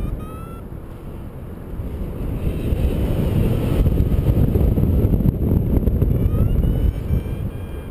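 Wind rushing and buffeting over the microphone in paraglider flight, growing louder about two seconds in. A few faint, high, rising tones sound about half a second in and again near the end.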